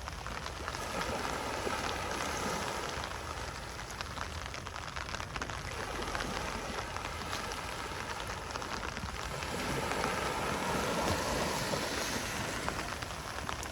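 Gentle ocean waves washing onto a beach: a steady hiss of surf that swells twice, about two seconds in and again around ten seconds in.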